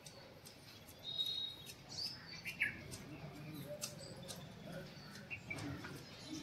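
Garden birds chirping faintly: scattered short high chirps and a couple of quick sliding calls.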